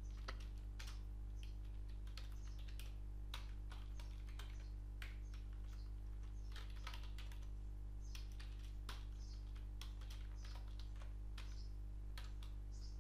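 Computer keyboard keystrokes, irregular bursts of typing with short pauses, over a steady low electrical hum.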